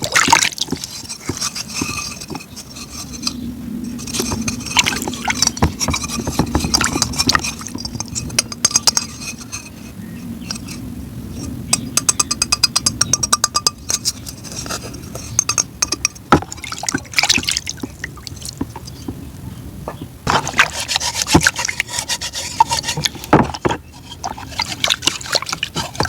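Close-miked eating of ice cream: wet crunching and chewing with many small crackling clicks, loudest in short spells.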